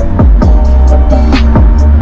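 Loud, bass-heavy electronic music: a deep, steady bass under held tones, with drum hits that drop in pitch several times a second.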